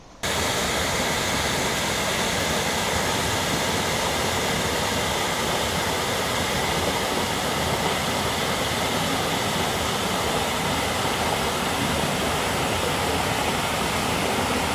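Small waterfall pouring over a rock ledge into a pool: a loud, steady rush of water that cuts in abruptly right at the start.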